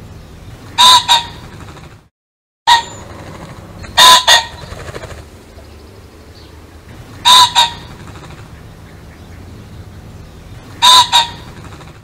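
Pheasant giving a loud two-note call four times, about every three seconds, over a faint steady background hiss. The sound drops out to silence for a moment about two seconds in.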